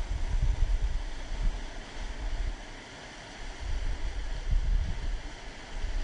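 Waterfall rushing steadily, with wind buffeting the microphone in low rumbling gusts over two stretches of a couple of seconds each.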